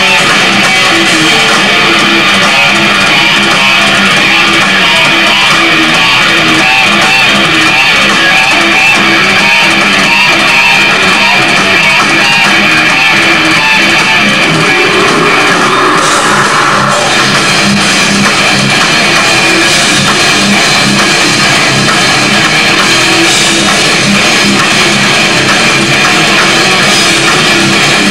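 Heavy metal band playing live and loud: electric guitars and a drum kit.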